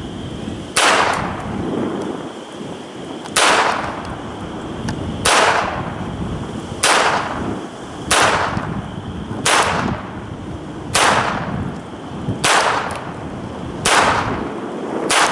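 Smith & Wesson Model 41 .22 rimfire target pistol fired at a slow, deliberate pace: about nine sharp single shots, one every one and a half to two and a half seconds. A steady rush of wind on the microphone runs under the shots.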